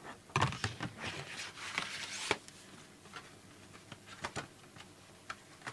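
Trading cards and their packaging being handled on a table: rustling and scraping with sharp clicks for about two seconds, then a few light clicks.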